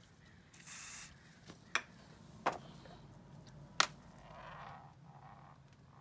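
Small screws and hand tools being handled: a brief hiss, then three sharp clicks spread over about two seconds, followed by a soft rubbing rustle.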